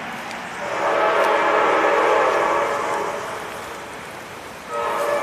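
Diesel locomotive air horn sounding a long blast of several tones together that fades away, then a second blast starting near the end.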